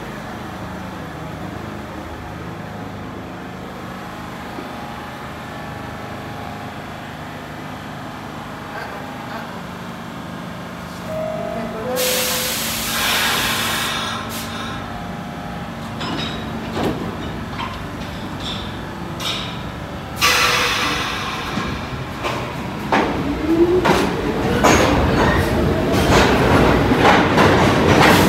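New York City subway trains at an underground platform. A standing train hums steadily, then comes a two-tone descending chime and a burst of air hiss. A second hiss follows about twenty seconds in, then a train's motors whine upward and its wheels clatter rapidly as it picks up speed, loudest near the end.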